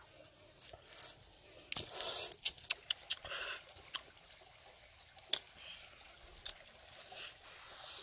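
Bare feet stepping on loose pebbles and ash, a quick run of clicks and crunches about two to four seconds in, followed by a long close sniff near the end.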